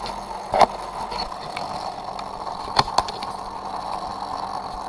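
A few sharp knocks and clicks from plastic toy car track being handled against the webcam, over a steady hiss. One knock comes about half a second in, and two come close together near three seconds.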